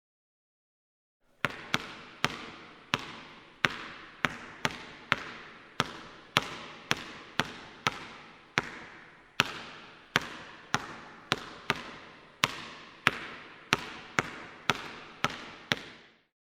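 Basketball being dribbled, bouncing about twice a second with a short echoing tail after each bounce. It starts about a second and a half in and stops shortly before the end.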